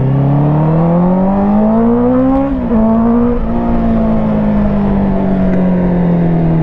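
Honda CBR650R's inline-four engine through its Akrapovic full titanium exhaust, accelerating: the revs climb steadily for about two and a half seconds, a quick upshift drops them, then the engine runs on at fairly steady revs that slowly ease off.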